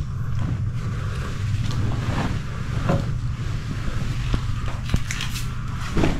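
Clothes and towels rustling as they are handled, with a few soft knocks, over a steady low hum.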